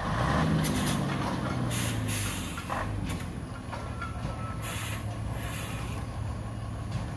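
Nissan UD truck's diesel engine running steadily, with short bursts of hissing air about two seconds in and again about four and a half seconds in.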